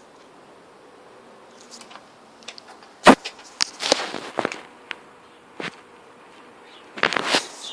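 Irregular sharp knocks and clattering noises: a loud knock about three seconds in, a quick run of knocks just after it, and another burst of clatter near the end.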